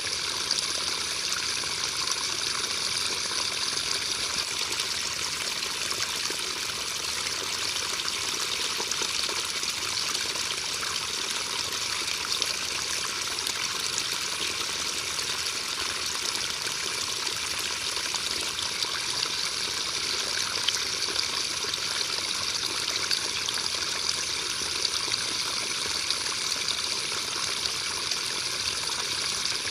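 Steady rain: an even, dense patter of drops, with a few sharper drops standing out now and then.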